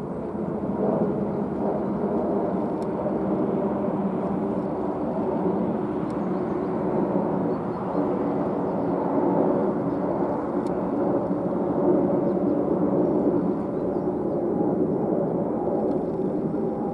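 Jet noise from an Airbus A321neo's two Pratt & Whitney PW1100G geared turbofans at climb power: a steady low rumble as the airliner climbs away overhead.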